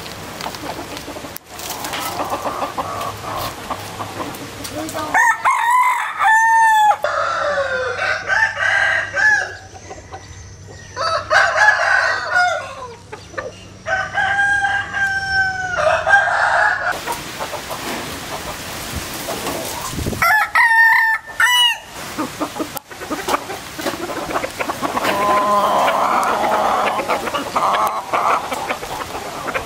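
Gà tre bantam roosters crowing: several long crows in the middle part, some overlapping, and softer calls near the end.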